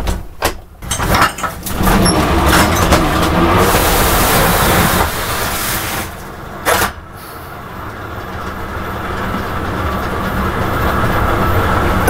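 A motor vehicle engine running under heavy wind rush, pulling up to speed with a rising pitch and growing gradually louder over the last few seconds; a few sharp clicks come at the very start.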